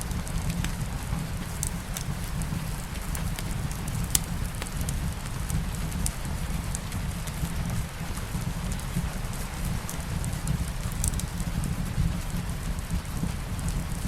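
Steady rain with a crackling wood fire: a constant low rumble and soft hiss, with sharp crackles and pops from the fire every second or so, a few louder ones standing out.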